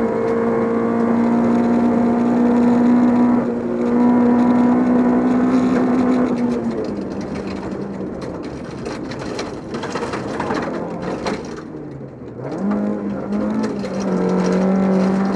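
Volvo 242 rally car's engine pulling hard at high revs, with a brief dip at a gear change about three and a half seconds in. Around seven seconds in the revs drop away off throttle while gravel rattles and clatters against the car. Near the end the engine comes back on throttle and holds high revs again.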